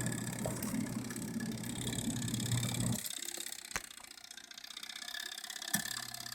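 Base Camp Ezywash portable washing machine running its wash cycle, its motor humming as the agitator turns. About three seconds in the motor stops for a pause, with a couple of sharp clicks, the break between changes of direction. The hum is just starting again near the end.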